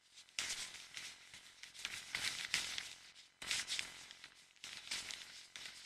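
Faint, irregular rustling and crackling, coming in clusters with short pauses.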